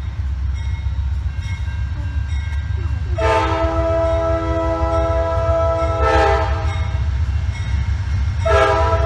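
Locomotive multi-chime air horn sounding two long blasts, several notes at once: the first starts about three seconds in and holds for about four seconds, and the second begins near the end. A steady low rumble runs underneath.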